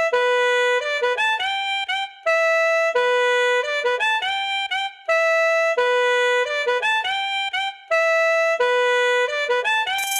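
Background music: a single lead melody of held notes, repeating a short phrase every few seconds, with no drums or bass. A brief rising swish comes at the very end.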